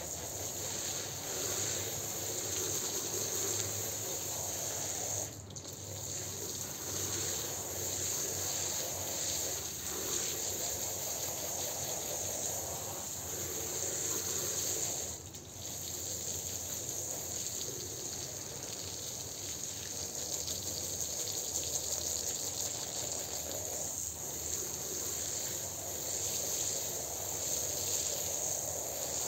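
A stream of water splashing steadily onto a soaked shag rug and tile floor, rinsing out soap foam. It breaks off briefly twice, about five and fifteen seconds in.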